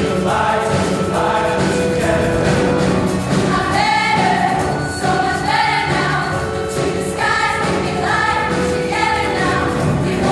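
Mixed show choir of male and female voices singing in full chorus, in phrases about a second long over steady held notes.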